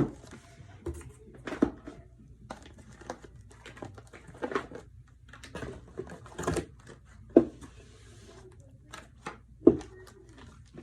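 Skincare products and their packaging being lifted out of a box and set down: irregular light knocks and rustling, with a few sharper knocks.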